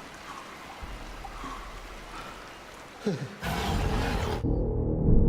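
Film soundtrack: a low, steady rush like flowing water, then about three seconds in a sudden loud surge of noise that gives way to deep, pounding low drums and music.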